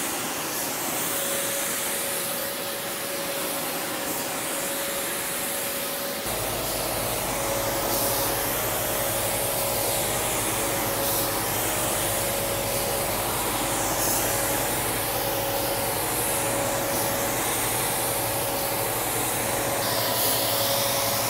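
Spray gun hissing in repeated passes, over the steady whine and rush of the inflatable paint booth's blowers. A low steady hum joins about six seconds in.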